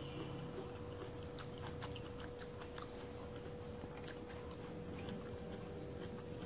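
Soft, scattered clicks and smacks from eating and handling cut fresh fruit, with a cluster between about one and three seconds in and more around four to five seconds, over a steady faint hum.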